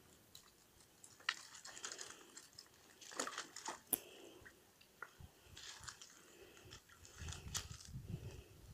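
A corgi wading in a shallow plastic paddling pool: water splashing and sloshing in several short bursts, with small clicks.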